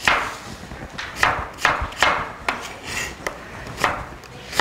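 Chef's knife dicing potato into small cubes: about eight separate chops, unevenly spaced, each blade stroke knocking down through the potato.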